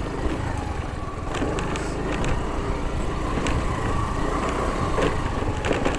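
Motorcycle engine running steadily at low speed on a rough gravel dirt road, with scattered knocks and rattles as the bike jolts over loose stones.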